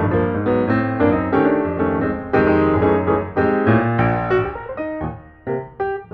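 Piano music, a quick run of notes that eases off about five seconds in and then picks up again.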